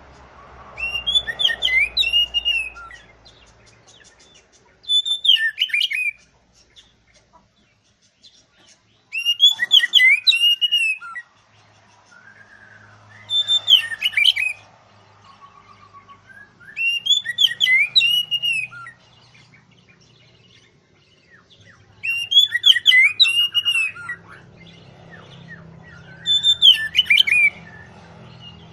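Oriental magpie-robin (kacer) singing loud whistled song phrases, each about two seconds long, seven in a row with short pauses between.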